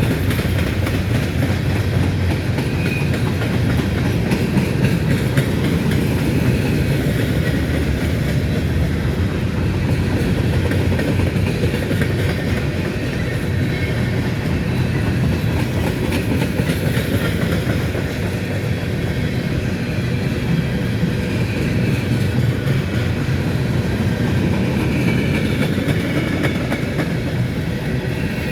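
Freight train of empty grain cars rolling past, a steady noise of steel wheels running on the rails.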